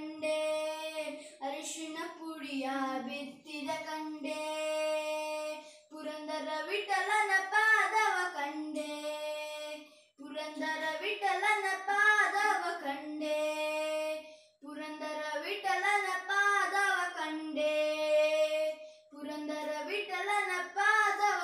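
A young boy singing a song unaccompanied, in held phrases of a few seconds each with brief breaks for breath between them.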